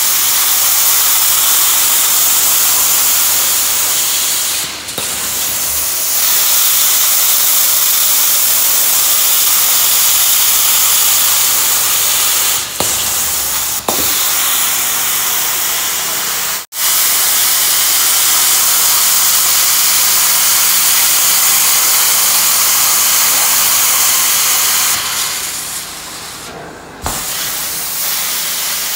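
Steady loud hiss of a truck-mounted carpet cleaning wand spraying hot water into the carpet and sucking it back up, with a few brief breaks.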